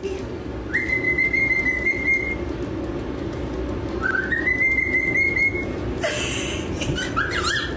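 A pet parrot whistling: two long notes, each sliding up and then held, followed near the end by a quick run of short squeaky chirps, over a steady low hum.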